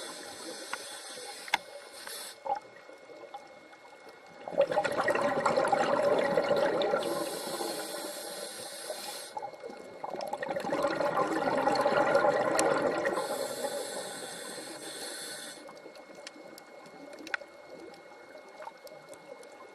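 Underwater water noise in surges: two long swells of bubbling water, each about five seconds, with bursts of high hiss in between.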